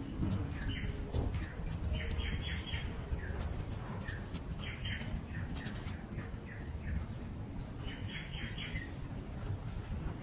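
Birds chirping in short clusters of quick repeated notes, over a steady low rumble.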